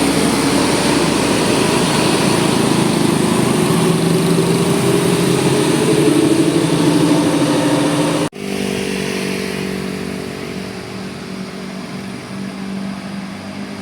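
Vehicle engines running close by in road traffic, the pitch rising slowly as one speeds up. About eight seconds in, the sound cuts off suddenly and gives way to a quieter, steady engine drone.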